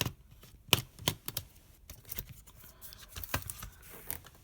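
Irregular small clicks and taps of a laptop's casing and parts being handled and pried during disassembly, the sharpest a little under a second in.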